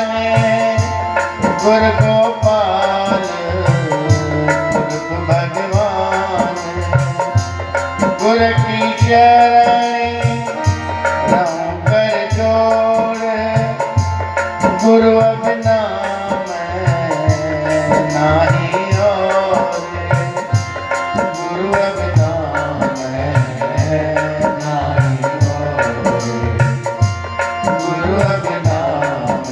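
Devotional bhajan music: a man sings a slow melody over a steady tabla rhythm.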